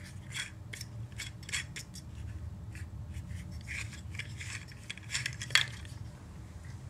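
Small camera accessory parts handled and fitted together by hand: scattered light clicks, scrapes and rustles, with one sharper click about five and a half seconds in.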